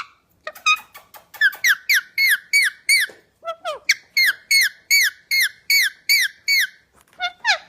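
Parrot calling in a fast, regular run of short squawks, about three a second, each one dropping in pitch. A few shorter clicks and calls come before the run.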